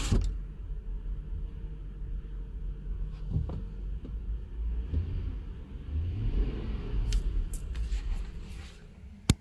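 2005 Land Rover LR3's 4.4 L V8 idling with a low, uneven rumble after a new cylinder 7 injector; it runs better but is still logging misfires. The sound falls away near the end and finishes with a sharp click.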